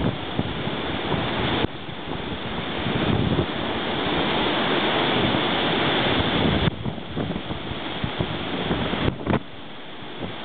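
Strong wind buffeting the microphone over the wash of choppy, whitecapped lake waves. The level drops suddenly a few times.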